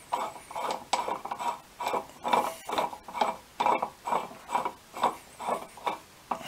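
Steel bearing puller being threaded down by hand inside an OMC Cobra sterndrive lower unit housing: short metallic scrapes and clicks of threads and tool turning against metal, about two to three a second, one with each twist of the hand.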